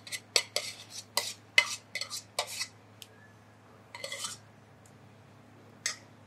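A metal spoon scraping and knocking against the inside of a stainless-steel saucepan as thick polenta is emptied out: a quick run of clinks and scrapes in the first two and a half seconds, another scrape about four seconds in, and a last clink near the end.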